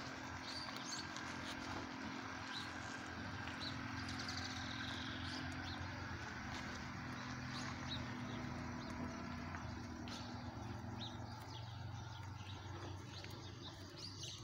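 Outdoor ambience: a steady low engine hum that fades out about eleven seconds in, with scattered faint bird chirps.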